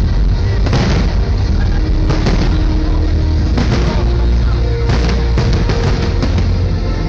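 Aerial fireworks shells bursting in a run of sharp bangs at irregular intervals, about half a second to a second apart, over loud bass-heavy music, recorded through a phone's microphone.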